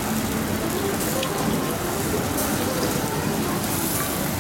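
Beef trimmings sizzling on a wire mesh over a charcoal grill, dripping fat flaring with a steady hiss and a few small crackles.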